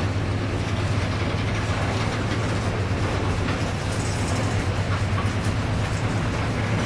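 Diesel locomotives of a loaded Norfolk Southern coal train running with a steady low drone as the train starts up again after a stop.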